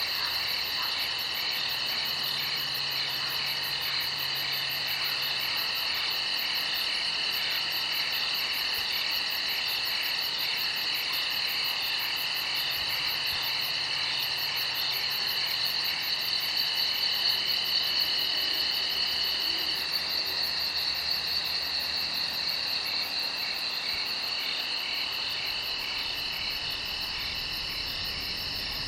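A night chorus of crickets trilling steadily, several high-pitched trills overlapping. One of the trills breaks off about two-thirds of the way through and comes back a few seconds later.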